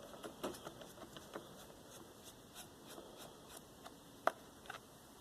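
Phillips screwdriver backing out the screws of a string trimmer's plastic air cleaner cover: faint, irregular small ticks and clicks, with one sharper click about four seconds in.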